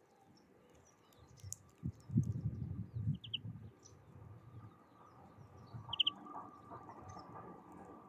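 Small songbirds chirping: two short high chirps, about three and six seconds in, with fainter calls between them, over low rumbling thuds that are loudest between two and three seconds in.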